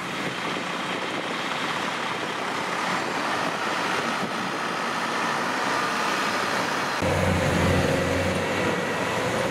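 Engine of a small tracked rice-hauling tractor running steadily as it drives off across the field. About seven seconds in, the sound cuts to a tracked combine harvester close by, its engine louder and deeper.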